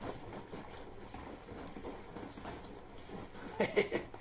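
Petrol mixed with two-stroke oil sloshing inside a 20-litre plastic jerrycan as it is shaken to mix the fuel, with a brief louder burst near the end.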